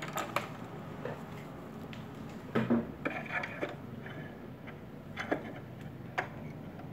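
Light clicks and taps of small parts being handled on a Juki sewing machine while it is set up to wind a bobbin, with one louder knock about two and a half seconds in. The motor is not running.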